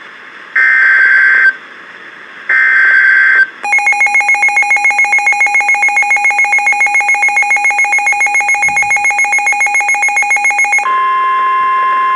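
Emergency Alert System SAME header bursts of screechy digital data tones, then the Midland WR-400 weather radio's own alarm beeping rapidly for about seven seconds. Near the end this gives way to the steady NOAA Weather Radio warning alarm tone that signals a warning, here a flash flood warning.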